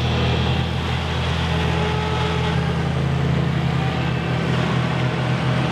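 Combine harvester engines running with a steady low drone.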